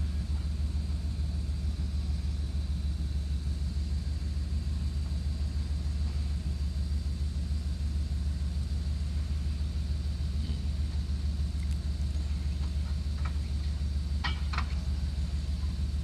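Link-Belt 4040 log loader's diesel engine running under work, a steady low rumble. Two short sharp clicks come about fourteen seconds in.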